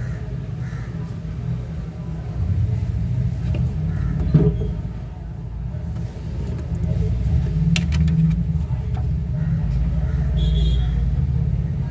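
A low, continuous rumble, with a few light clicks about four and eight seconds in.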